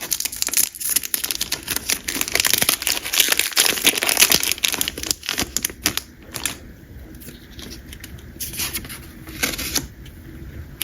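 Foil trading-card booster pack being torn open and crinkled, with a dense run of crackling and tearing for the first six seconds, then lighter rustling and a few crinkles as the cards are handled.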